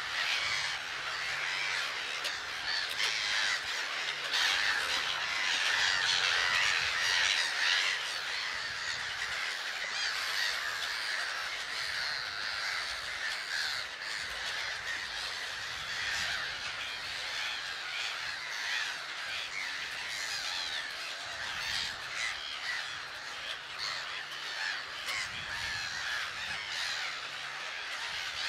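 Large grey-headed gull colony calling: a dense, continuous chorus of harsh, crow-like calls from many birds at once, a little louder in the first few seconds.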